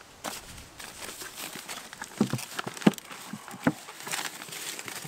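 Plastic film crinkling as a plywood roof lined with it is handled and set onto a wooden box, with three sharp knocks of wood on wood around the middle as the roof comes down into place.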